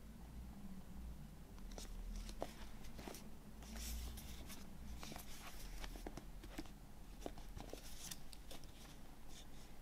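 Cardboard box set handled in the hands, its inner box sliding out of a card slipcase: irregular soft rustles, scrapes and light taps of card on card, starting about two seconds in.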